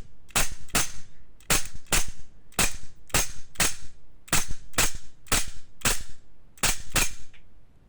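Gas-powered airsoft pistol, a Sig Sauer P320 PRO Wilson Combat replica running on propane, firing shot after shot at about two to three shots a second as a full magazine of BBs is emptied. The string stops shortly before the end.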